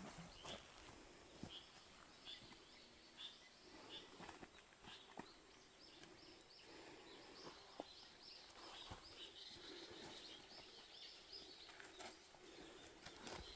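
Near silence outdoors: a small bird chirping faintly over and over, a few short calls a second, with scattered soft rustles and snaps of weeds being pulled by hand from soil and plastic mulch.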